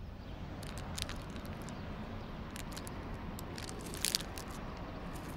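Crunching of a snack with scattered crackles from its packet, over a steady low background ambience.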